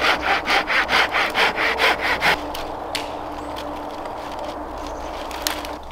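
Hand saw cutting through a dead branch in quick, even strokes, about five a second, stopping after about two seconds. A few sharp cracks of snapping twigs follow.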